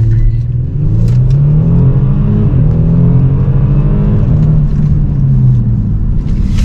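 The Genesis G70's 3.3-litre twin-turbo V6 running under hard acceleration during a launch-control run. Its pitch climbs and then drops back a few times as the 8-speed automatic shifts up.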